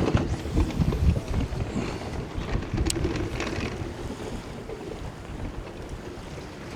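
Wind buffeting the microphone: a low, fluttering rumble that gradually eases, with one sharp click about three seconds in.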